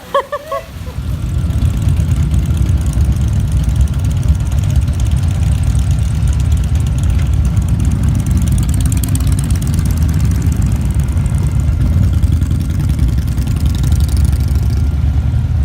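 Vehicle engine running steadily with a deep rumble that builds up about a second in.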